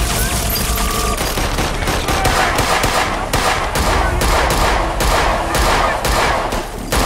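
A volley of rapid gunfire from several handguns, many shots in quick succession from about two seconds in. In the first second a steady humming tone is heard.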